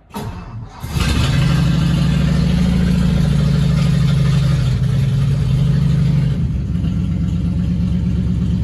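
1954 Ford Customline's engine cranking briefly and catching about a second in, on the choke. It runs at a raised, steady speed, then settles to a slightly lower, quieter idle a little after six seconds.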